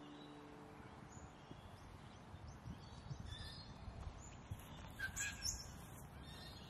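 Faint outdoor ambience with small birds chirping on and off, short high calls with a louder cluster about five seconds in, over a low steady rumble.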